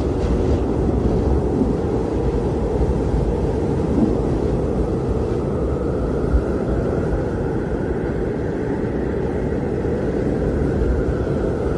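Blizzard wind blowing hard and steadily, a deep rushing noise with a faint howl that slowly rises and falls in pitch.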